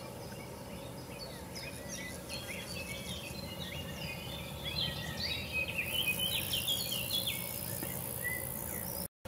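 Summer field ambience: birds chirping and warbling in quick, varied short notes, busiest and loudest from about five to eight seconds in, over a high-pitched pulsing insect trill that turns steadier and louder about six seconds in. The sound cuts out briefly near the end.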